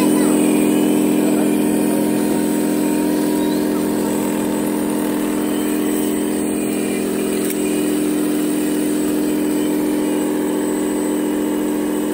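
Ride-on toy dump truck's electric motor giving a steady hum of several fixed pitches, slowly fading as it moves away.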